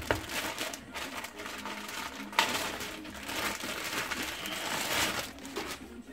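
Packaging crinkling and rustling in irregular handling noise as a new air-conditioning compressor is unwrapped.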